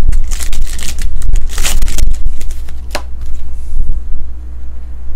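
Trading cards being handled and slid against one another: a run of rustling and scraping in the first two seconds, then a single sharp click about three seconds in, over a steady low hum.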